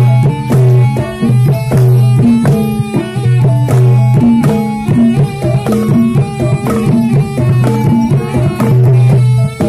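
Loud traditional Javanese ebeg accompaniment: hand drums beat a busy rhythm over ringing pitched metal percussion and long held low notes.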